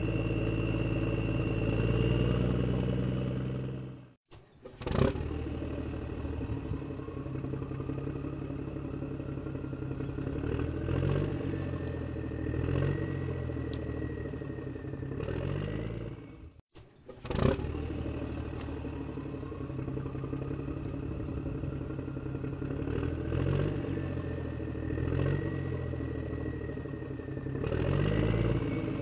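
Looped tractor engine sound effect running and revving. It cuts out twice, restarts each time with a sharp burst, then runs on with a slowly rising whine and a few short revs; the same sequence repeats about every twelve seconds.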